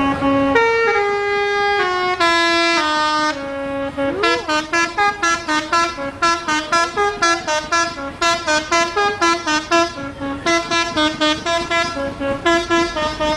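Tour bus telolet multi-tone air horn (Basuri type) playing a tune. It opens with a few long held notes stepping between pitches, swoops in pitch about four seconds in, then plays a fast run of short staccato notes at about three a second.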